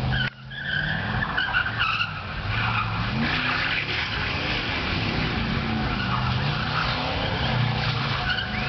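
A car doing a burnout: the engine revs up and down repeatedly while the spinning rear tyres squeal.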